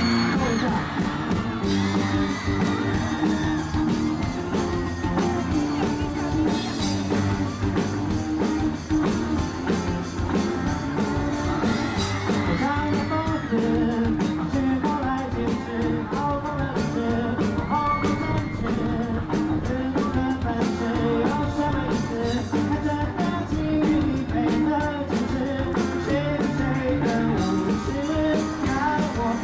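Live pop-rock band playing a song: a male lead vocal sings over electric guitars, keyboard and a steady drum beat.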